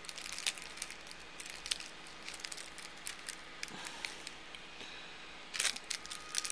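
Thin plastic snack-cake wrapper crinkling as it is pulled off and handled: scattered light crackles, with a louder burst of crinkling near the end.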